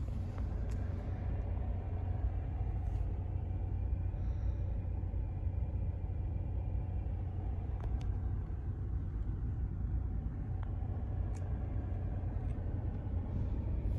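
GMC pickup truck running, heard from inside the cab as a steady low rumble.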